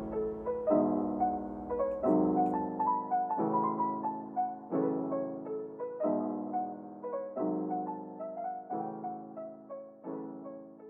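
Background piano music: soft chords struck about every second and a half with a melody above them, slowly fading out.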